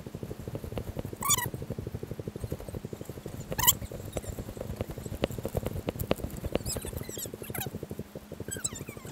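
Footsteps and rustling on a dry straw-covered path, a steady fine crackle, broken by a few short, high, squeaky calls.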